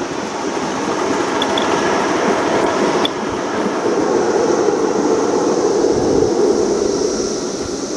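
Ridable miniature live-steam train running along the track: a steady rush and clatter of the cars' wheels on the rails, dipping briefly about three seconds in.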